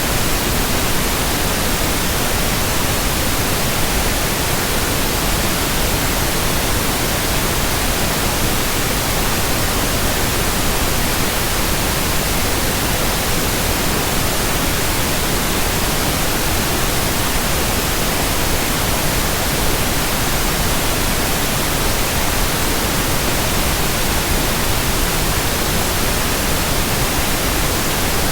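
Steady white noise: an even, unchanging hiss spread across high and low pitches alike, with no rhythmic swish or hum in it.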